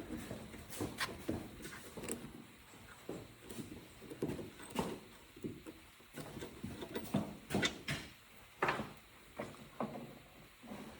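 Irregular light clicks and knocks of hand tools and parts being handled as the rear brake caliper of a 125cc ATV is unbolted and taken off.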